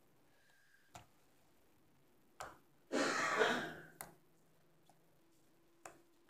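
Slime being pressed and poked with the fingers, giving a few sharp clicks and pops and one longer squish of about a second, about three seconds in.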